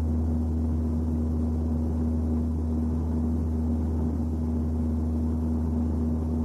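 A steady low rumbling drone with a constant hum above it, unchanging throughout.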